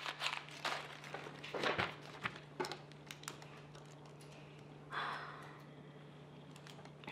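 Sheet of paper crumpled in the hands, a run of crinkling and crackling over the first two or three seconds. About five seconds in comes a breathy sigh.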